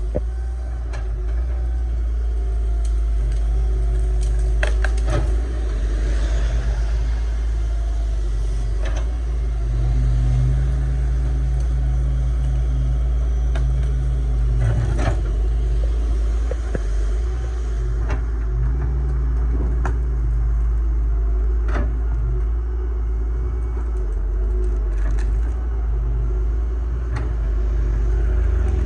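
Excavator's diesel engine running steadily under load, with a few scattered knocks and clanks of the machine working rock and earth.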